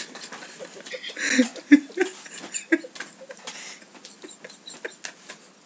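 Scattered soft clicks and knocks from people moving and handling things close to the microphone, with brief stifled snickers and a short breathy burst about a second in.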